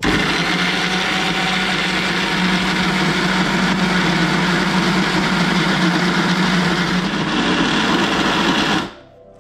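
Preethi mixer grinder running steadily with a constant hum, blending crushed Oreo biscuits and milk into a thick paste in its steel jar. It starts abruptly and cuts off shortly before the end.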